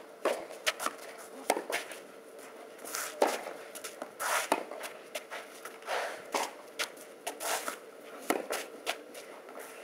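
Tennis ball hit back and forth on a clay court: a string of sharp pops from the ball leaving the racket strings and bouncing, with tennis shoes scuffing and sliding on the clay between shots.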